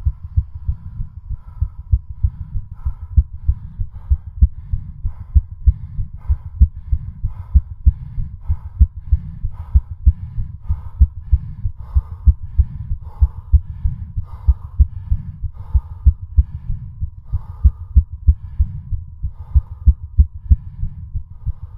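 Human heartbeat beating fast under hard exercise on a stationary bike, near exhaustion. Rapid, regular low thumps come a little over two a second.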